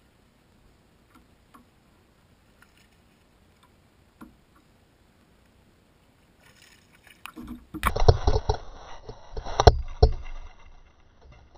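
Water splashing hard at the surface right beside the boat as a fish hits the topwater lure and thrashes, several splashes over about three seconds. Before it there are only faint scattered ticks.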